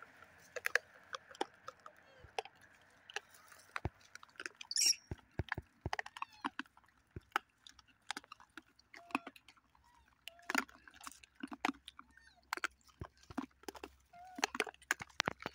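Gray langurs chewing and handling food close by: an irregular string of short, sharp clicks and crunches.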